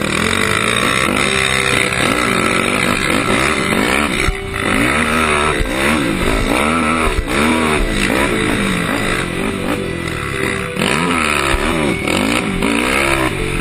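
Sport quad's engine revving up and down over and over as the rider works the throttle around a motocross track, the pitch rising and falling every second or so.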